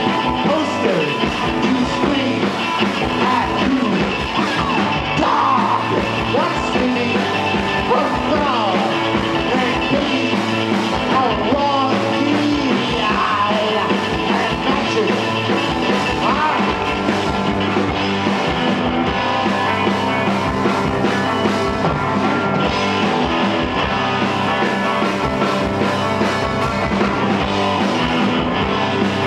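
A rock band playing live at a steady, loud level, with singing in places.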